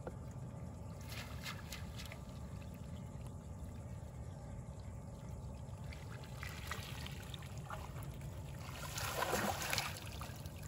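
Water trickling around a small boat as a fish trap is emptied, with a louder rush of pouring, splashing water for about a second near the end.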